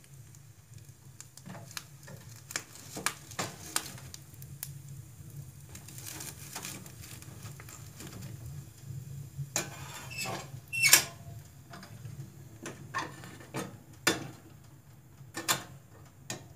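Wood fire crackling in a metal wood-burning stove, with metal clanks and scrapes as the fire is tended with a poker and the firebox door is handled. The loudest clatter comes about eleven seconds in.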